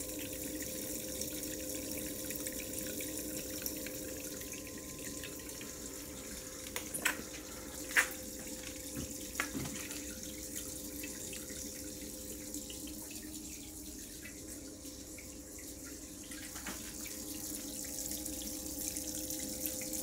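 Water running and splashing through a gold-recovery rig, a clear gold cup concentrator column and a small sluice spilling into a bucket, over a steady hum. A few sharp knocks about seven and eight seconds in, the one near eight seconds the loudest.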